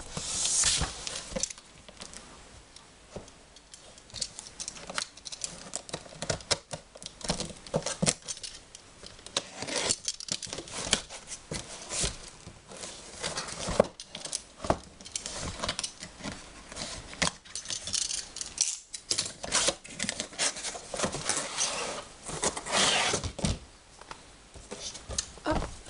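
A cardboard shipping box being opened by hand: a utility knife slitting the cardboard, and the box shifted, scraped and knocked on a cutting mat as its flaps are pulled open, in irregular clicks, rustles and knocks.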